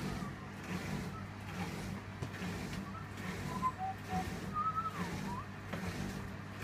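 Candy Aquamatic 2 compact washing machine running empty with a steady motor hum that swells in a regular pulse, about two a second, as the drum starts into its spin. A few faint, short whistling glides sound over it.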